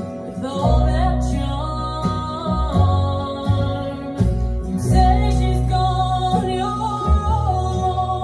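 Recorded music playing from the speakers of a restored 1969 Zenith Z960 console stereo, fed from a Wi-Fi audio receiver through the stereo's tape input.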